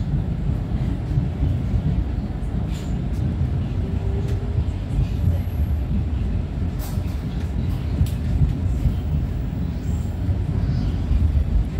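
Argo Lawu passenger train running: a steady low rumble with a few faint clicks.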